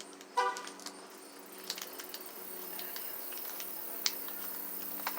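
Small metal screwdriver bits and a hex bit adapter being handled, giving scattered light metallic clicks, with a short pitched sound about half a second in.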